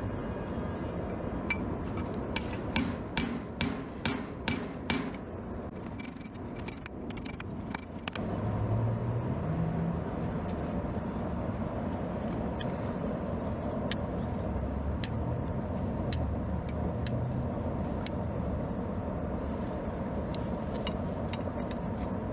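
Blacksmith's hammer striking metal, about eight ringing blows at roughly two a second, over a steady roar that gets louder about eight seconds in. Scattered lighter taps and clicks follow.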